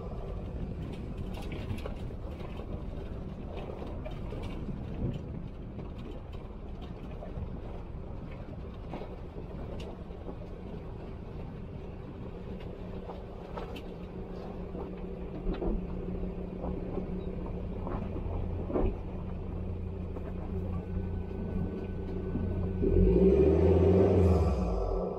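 Car driving over a rough dirt track: a steady engine hum under low tyre rumble, with scattered knocks and rattles as it goes over stones and bumps. Near the end the sound swells louder for a couple of seconds.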